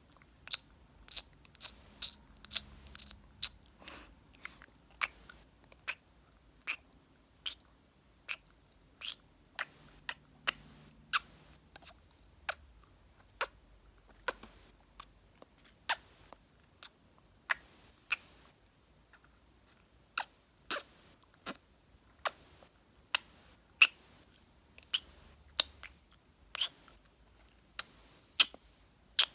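Close-miked mouth sounds, kisses and lip smacks, in a steady run of short sharp clicks, about one to two a second.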